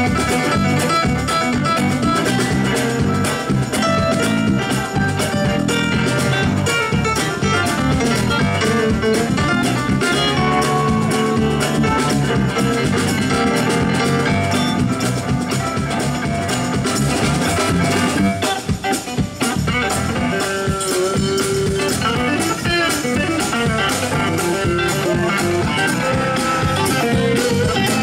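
A live band plays through amplifiers: a Nord Electro 3 stage keyboard and guitar.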